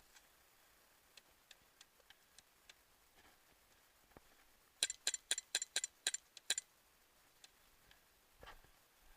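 Airsoft gun firing a quick string of about eight shots in under two seconds, roughly four or five a second, midway through, among faint scattered clicks.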